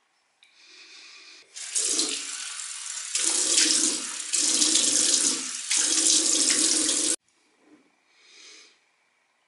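Water running from a bathroom sink tap onto hands under the stream, loud in several surges with short dips, then shut off suddenly about seven seconds in.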